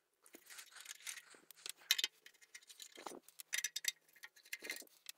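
Screwdriver turning out the screws of the feet on a vintage BWD signal generator's metal case: faint, irregular small metallic clicks and scrapes, with a couple of soft knocks.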